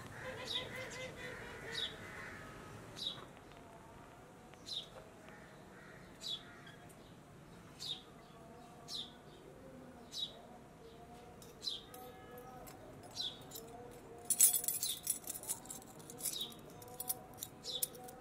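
A bird repeating a short, sharp chirp about every second and a half. About fourteen seconds in there is a brief burst of quick rustling or fluttering.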